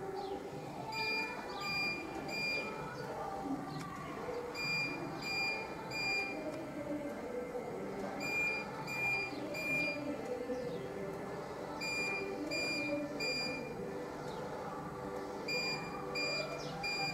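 Electronic alarm beeping in groups of three short, high beeps, a group about every three and a half seconds, with music playing underneath.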